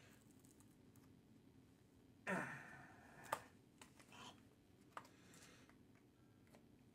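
A man's sigh about two seconds in, its pitch falling, then a sharp click and a few fainter clicks and taps as he handles a small package he cannot get open; otherwise near silence.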